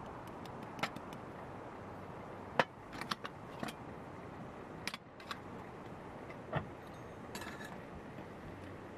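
Scattered light metal clinks and taps from a stainless steel Vietnamese phin coffee filter, its saucer and its press disc being handled and fitted together. The loudest clink comes about two and a half seconds in, over a steady low hiss.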